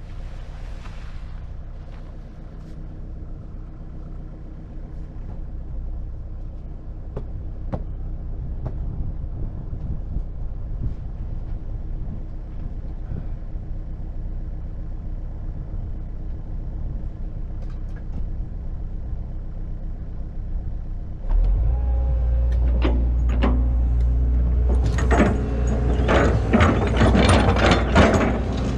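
Excavator's diesel engine running steadily, stepping up sharply in speed and load about three-quarters of the way through. Near the end, repeated metallic clanks and scrapes from the machine working.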